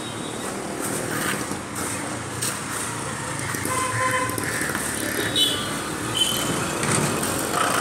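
Street traffic passing close by: motorbikes, an auto-rickshaw and cars going by with engine and tyre noise, and a short horn toot about four seconds in.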